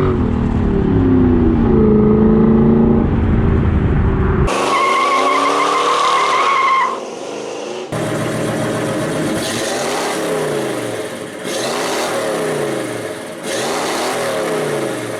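Car engines revving, in abruptly cut segments, with a sustained tire squeal about four to seven seconds in.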